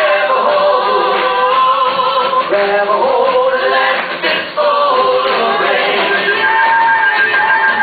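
Live band playing a rock song with singing voices over it.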